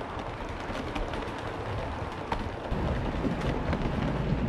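7mm-scale model trains rolling along the layout's track: a steady rumble of wheels and motors with scattered clicks, growing louder and deeper about two-thirds of the way through.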